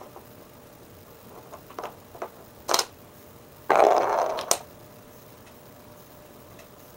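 Small toy bowling ball rolling across a wooden floor and knocking into small wooden pins: a few light wooden clicks, then a louder rolling clatter lasting under a second that ends in a sharp knock.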